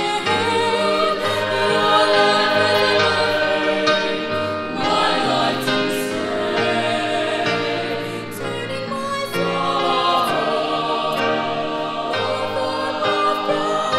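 Mixed choir singing a Christian choral song in harmony, with piano accompaniment.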